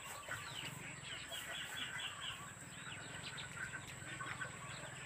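Chickens clucking and small birds chirping, a busy scatter of short calls, with a quick run of repeated high notes about a second and a half in. A faint steady low hum lies underneath.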